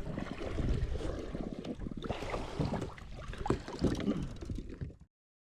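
Wind rumbling on the microphone, with scattered knocks and bumps of gear being handled aboard a kayak. The sound cuts off abruptly about five seconds in.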